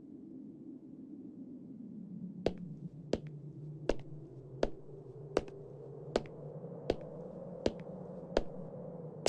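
Slow, evenly paced footsteps, about nine sharp clicks roughly three-quarters of a second apart, over a low steady hum.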